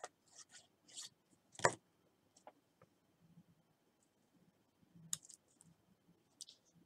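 Paper card stock being handled on a craft table: soft paper rustles and a few light clicks, the sharpest about one and a half seconds in and another about five seconds in.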